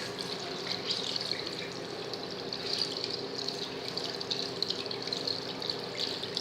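Water running steadily from a tap, with a steady low hum beneath.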